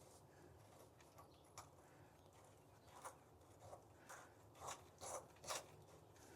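Near silence with faint handling noises as a garden hose is fitted onto a water heater's drain valve: a few short scrapes and clicks, closer together in the second half.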